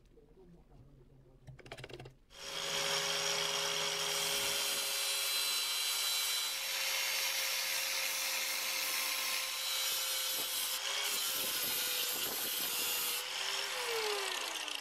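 Angle grinder switched on about two seconds in, running with a steady motor whine while a pebble is pressed against its spinning abrasive disc, making a loud hissing grind. Near the end the motor's pitch drops as it winds down.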